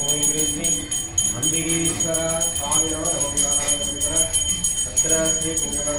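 Puja hand bell rung continuously, a steady high ringing jingle, while a voice chants mantras in long, held syllables.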